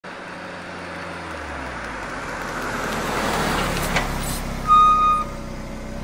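Intro sound effect of a motor vehicle running and growing steadily louder, with a sharp click about four seconds in. A brief, loud, high-pitched steady tone follows about a second later, and the sound then fades out.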